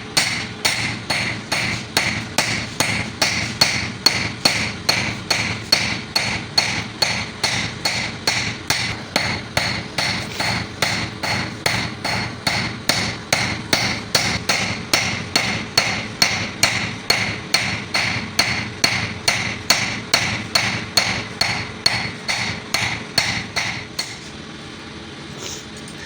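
Hand hammer forging a piece of drill-bit steel into a knife blade on an anvil: steady, evenly spaced blows, about two to three a second, each with a metallic ring. The blows stop near the end, leaving a faint hiss.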